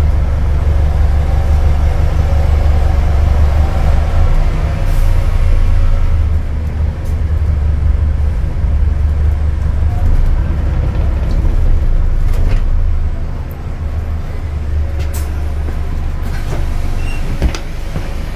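Cabin sound of an Alexander Dennis Enviro400H MMC hybrid double-decker bus on the move: a steady low drone of drivetrain and road noise. The drone dies down about thirteen seconds in as the bus slows for a stop, and there is a sharp knock near the end.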